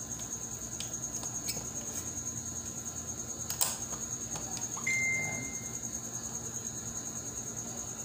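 Small clicks and taps of hand wiring work as a wire is fitted to a circuit breaker terminal, with one sharper click about three and a half seconds in and a brief high ring about five seconds in.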